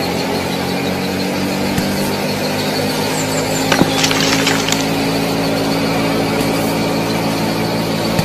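Small electric motor of a DIY model tractor running steadily with a whining gear hum, with a click and a short scraping rattle about four seconds in.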